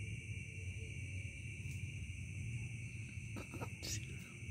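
Steady night insect chorus, crickets chirping in a continuous high drone over a low hum, with a few short sharp clicks about three and a half and four seconds in.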